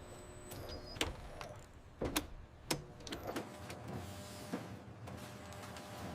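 Automated food-assembly machinery running: a steady electric motor whir with sharp mechanical clicks and clacks, several in the first three seconds and one more past the middle.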